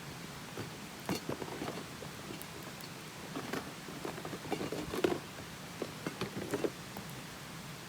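Wood fire burning with a steady hiss and irregular crackles and pops, busiest in the second half.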